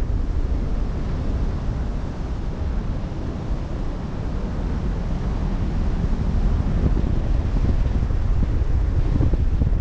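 Wind buffeting the microphone at sea, a steady low rumble with the wash of waves beneath it. It eases a little in the middle and picks up again near the end.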